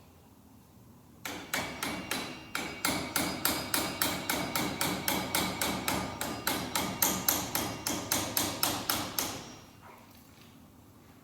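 A hand hammer striking metal in a fast, even series, about four blows a second for about eight seconds, while a front wheel hub is being taken apart.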